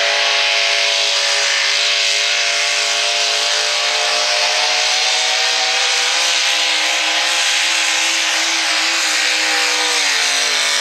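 V8 engine of a hot rod pulling tractor running hard at high revs under load as it drags the weight sled. The pitch rises slowly and then sags slightly near the end as the sled bears down.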